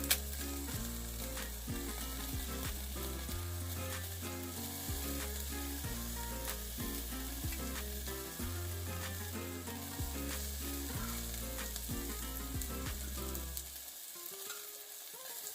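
Pork barbecue sizzling as it cooks, nearly done. Background music with a steady bass line plays over it and stops near the end.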